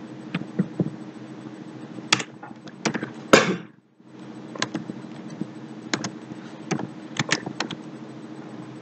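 Scattered clicks of a computer keyboard and mouse, with one louder knock a little over three seconds in, over a steady low hum.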